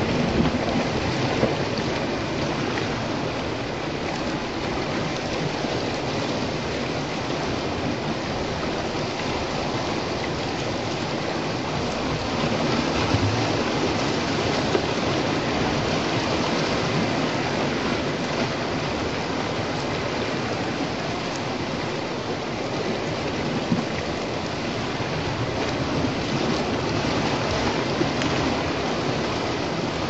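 Sea waves washing over and splashing among shoreline rocks: a steady hiss of surf, with a few slightly louder splashes.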